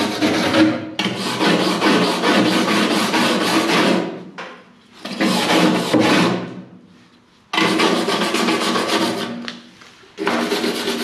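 Hand wire brush scrubbing freshly welded seams on a sheet-metal patch panel, cleaning the welds off. It comes as fast back-and-forth scratching in several spells, with short pauses between them.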